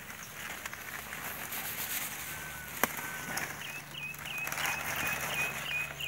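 Collard green leaves rustling as they are pulled and gathered by hand, with one sharp click about three seconds in. In the second half a bird chirps a quick run of short, repeated high notes.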